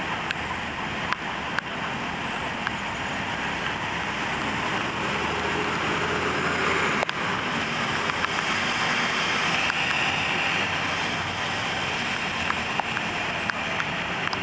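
Steady roadside noise of traffic and wind on the microphone, swelling louder toward the middle, with scattered light clicks.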